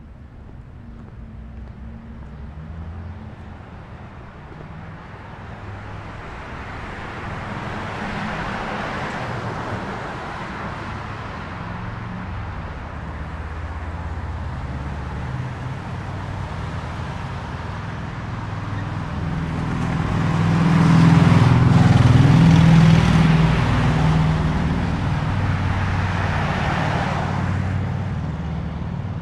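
Road traffic: cars passing one after another over a steady low rumble, their tyre and engine noise swelling and fading. The loudest pass, with a strong engine hum, comes about two-thirds of the way through.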